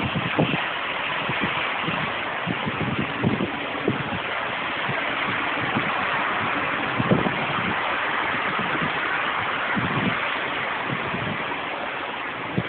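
Tornado-force wind and heavy rain: a steady rushing noise, with gusts thumping on the microphone now and then.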